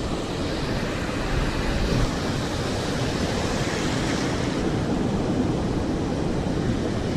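Ocean surf breaking and washing up the beach, with wind rumbling on the microphone. One wave's rush swells and fades about halfway through.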